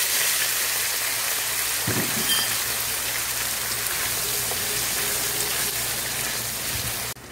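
Diced potatoes sizzling steadily as they fry in hot butter and chicken drippings in a nonstick wok, with a single soft knock about two seconds in. The sizzle cuts off suddenly near the end.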